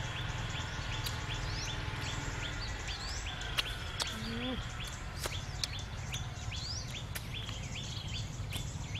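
Birds calling outdoors: one bird repeats a short high chirp about twice a second, with a few rising whistles from others, over a low steady background rumble. A few sharp clicks and one short low call about four seconds in are heard among them.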